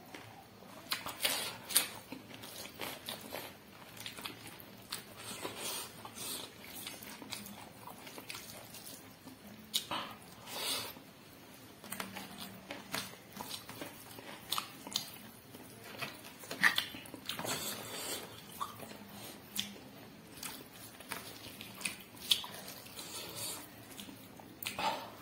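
A person eating close to the microphone: irregular bites and chewing of spicy pork leg and intestine, with sharp clicks and wet mouth noises several times a second.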